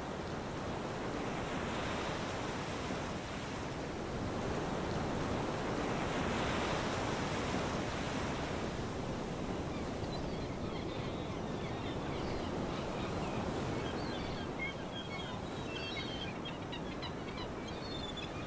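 Sea surf on a shore, a steady rush of waves that swells and eases. Through the second half there are faint, scattered high crackles.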